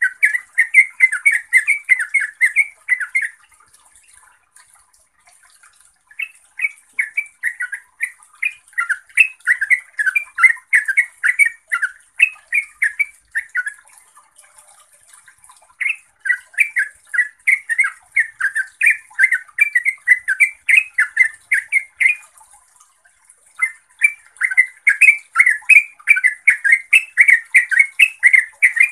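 Yellow-vented bulbul singing in long, fast runs of chattering notes. It breaks off three times for one to three seconds before starting again.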